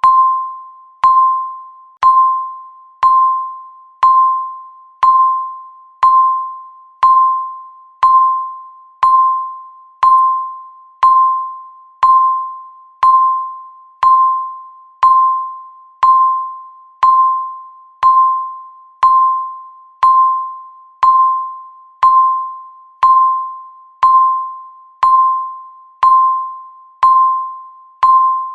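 Countdown timer marking each second with a short electronic beep, a single clear pitch struck once a second and fading away before the next.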